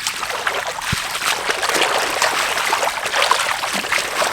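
Shallow water sloshing and splashing continuously in many small splashes, with one dull knock about a second in.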